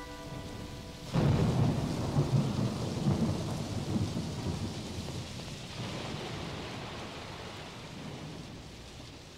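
Recorded thunderstorm sound effect in a song's outro: a held keyboard chord breaks off about a second in, then a sudden rumble of thunder that slowly dies away over steady rain.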